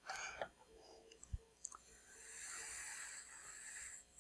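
Faint handling sounds as a brass cartridge case held in pliers is dipped into a molten-salt annealing bath: a few light clicks, then a soft hiss lasting about two seconds.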